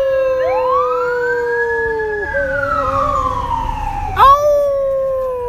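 A dog and people howling together: several long howls overlap, gliding up and then slowly down in pitch, and a fresh howl comes in about four seconds in.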